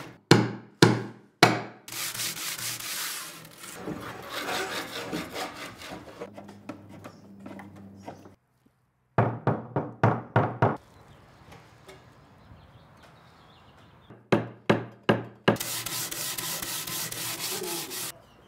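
Hand tools working the wooden boards of a boat: bouts of quick sawing strokes, about three a second, alternate with longer stretches of rubbing and rasping on wood. There is a brief silence about halfway through.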